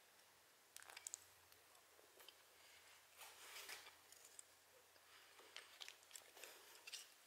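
Near silence, with faint rustles and a few light ticks from hands placing thin strips along the edges of a wooden cutting board.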